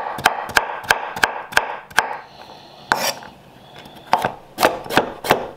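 A square-bladed knife chopping carrots on a wooden cutting board, each cut a sharp knock of the blade on the wood. A quick run of chops at about three a second gives way to a lull of about two seconds with a single chop in it, then a second run of chops starts about four seconds in.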